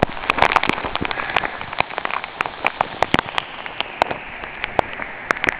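Water drops pattering: many irregular sharp taps over a steady hiss.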